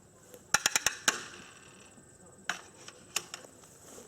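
Sharp mechanical clicks and clacks as trap-shooting gear is handled between shots: a quick run of four clicks about half a second in, one more just after, then single clicks twice near the end.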